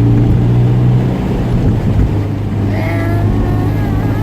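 Engine and road noise heard inside a moving Honda S2000's cabin: a steady low drone.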